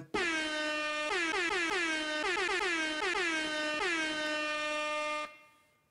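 Air horn sound effect: one long blast, then a quick run of repeated blasts, all at the same pitch. It fades out a little over five seconds in.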